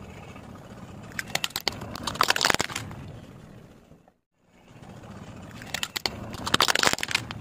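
Hard plastic toys cracking and crunching under a car tyre, in two bouts of rapid snapping about four seconds apart, over a low steady rumble. The sound drops out briefly between the bouts.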